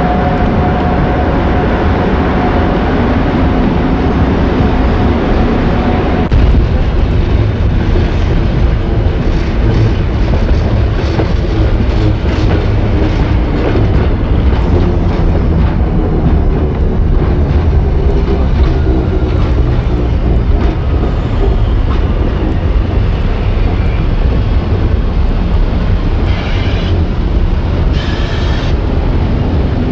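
Electric trains and rail wagons on the move: a steady low rumble with the clatter of wheels and couplings. A steady hum opens the sound and cuts off about six seconds in, and two short high-pitched bursts come near the end.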